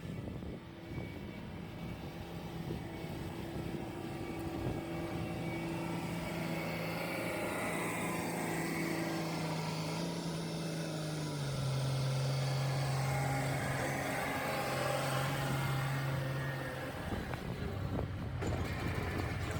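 Semi truck engine running on the road, heard as a steady hum that steps down in pitch about eleven seconds in, with the hum fading out near the end.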